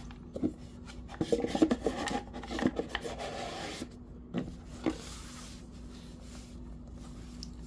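Hands handling a cardboard watch box and a leather watch pouch: rubbing and scraping with a few light knocks, busiest in the first half and quieter near the end.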